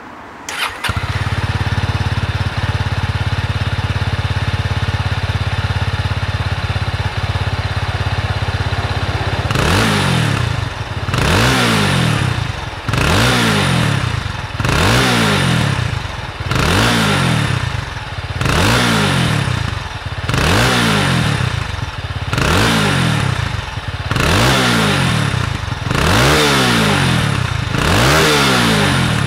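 Honda CB190SS's single-cylinder engine heard at the exhaust silencer: it idles steadily, then from about ten seconds in is blipped again and again, the revs rising and falling about every second and a half to two seconds.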